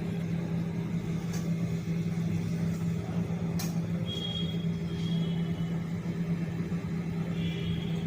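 Samsung microwave oven running with a steady low hum, fitted with a new turntable motor. No grinding or scraping noise, which means the turntable now turns freely. There is one brief click about halfway through.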